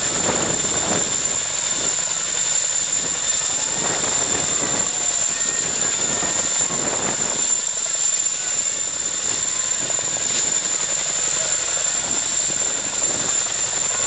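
Chinook tandem-rotor helicopter's twin turboshaft engines and rotors running at a steady level, with a steady high whine over the rotor noise.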